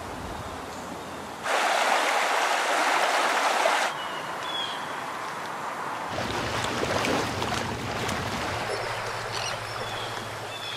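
Outdoor ambience in short cuts: a loud rushing hiss for a couple of seconds, then small waves lapping on a lakeshore, with faint bird chirps and a low steady hum underneath.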